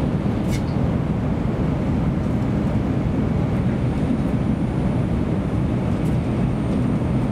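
Cabin running noise of a JR Kyushu N700 series 8000 Shinkansen at speed: a steady low rumble, with a faint high whine above it.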